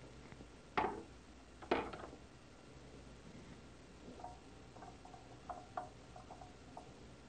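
Two sharp knocks about a second apart as a foot switch is set onto the surgical microscope stand's base, followed by a run of small light clicks and clinks as its cords and plugs are hung on the stand's hangers.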